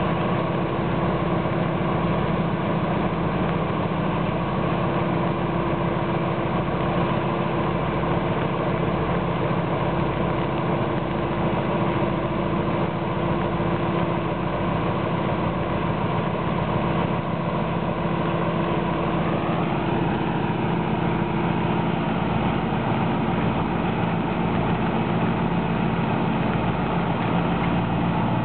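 Alstom diesel-electric locomotive idling steadily at the head of a standing passenger train, a deep pulsing engine beat under it. About twenty seconds in, a higher tone rises in pitch.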